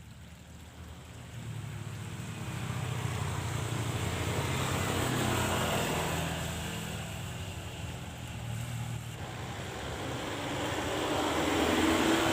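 An engine running with a low hum, swelling to a peak about five seconds in, easing off, then growing louder again near the end.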